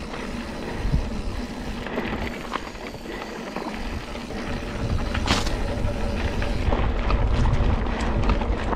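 Mountain bike ridden over a dirt trail, with wind buffeting the microphone and small rattles and knocks from the bike and tyres. The wind gets louder in the second half, and there is one sharper scraping noise about halfway through.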